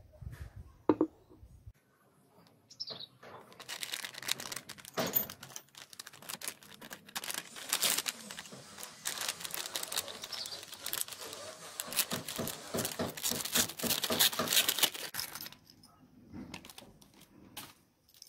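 A plastic parts packet crinkling and rustling as it is torn open and handled, a dense crackle lasting about twelve seconds. A sharp click about a second in.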